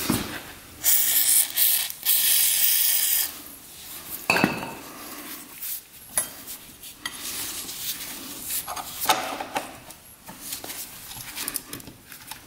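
An aerosol can of penetrating oil spraying onto a motorcycle's kick-start shaft in a hiss of about two seconds, followed by scattered metal clinks and scrapes as a steel tool works against the shaft.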